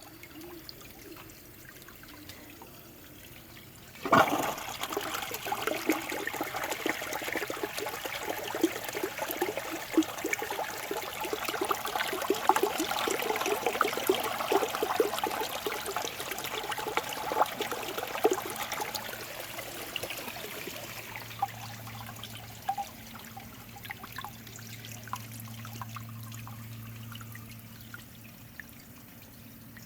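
A 5th Sense washdown toilet flushing with one of its rim channels blocked. The flush starts suddenly about four seconds in, water rushes for about fifteen seconds, then tails off to a trickle. A steady low hum follows near the end.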